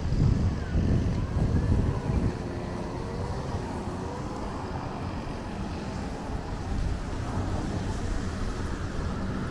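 Wind buffeting the microphone as a gusty low rumble, strongest in the first two seconds, over a steady background of road traffic.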